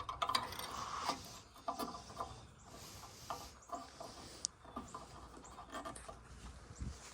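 Scattered light clicks, taps and rubbing of plastic parts being handled as a fog light bulb is worked into its housing.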